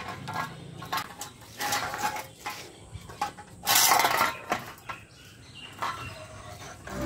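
Metal can on the end of a pole clattering and scraping on concrete as a puppy plays with it: irregular clinks and knocks, with a longer, louder scrape about four seconds in.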